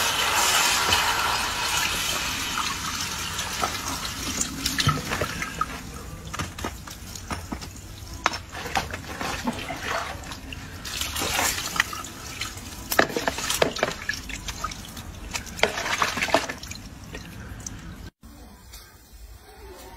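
Water poured onto a hot metal tray holding freshly cast gold rings, hissing and sizzling as it quenches the metal. The hiss fades over the first few seconds into scattered pops and drips as the tray cools.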